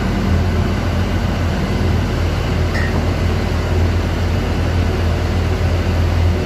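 Steady low drone of running machinery aboard a fishing vessel, with one brief faint click about three seconds in.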